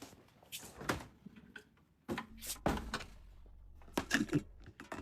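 Knocks and rustles of a smartphone being handled close to its own microphone as it goes into a refrigerator, with the fridge door opening. A low steady hum comes in about halfway.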